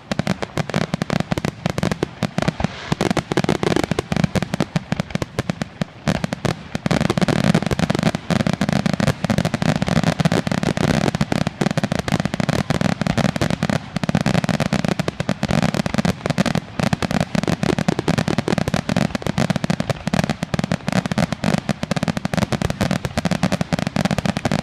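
Fireworks finale: a dense, unbroken barrage of rapid bangs, growing louder about seven seconds in.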